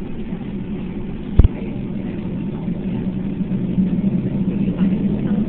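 Boeing 757 engines and airframe rumble heard inside the passenger cabin during the takeoff roll, a steady drone with a low hum that swells slightly in the second half. A single sharp thump about a second and a half in.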